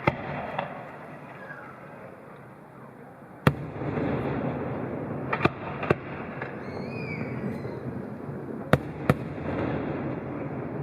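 Fireworks bursting: about seven sharp bangs at irregular intervals, the loudest about three and a half seconds in, over a steady noisy background that swells after it.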